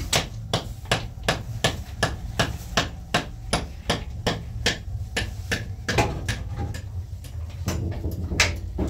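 Steady hammering: sharp blows about three a second for some six seconds, then a few slower, heavier strikes near the end.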